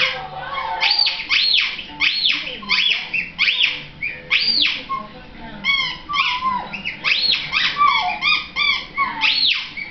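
Small dog singing: a run of short, high whines, each rising and falling in pitch, about two a second.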